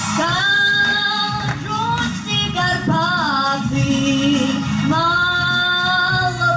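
A young girl singing a folk song solo, holding long notes, with a sliding, wavering turn of the voice about three seconds in.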